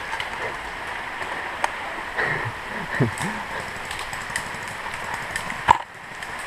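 Steady outdoor background hiss with faint distant voices and small clicks, then a single sharp crack near the end: an airsoft gun firing.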